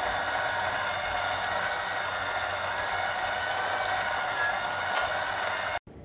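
Vertical slow juicer running as it juices vegetables: a steady motor whine and hum that stops abruptly near the end.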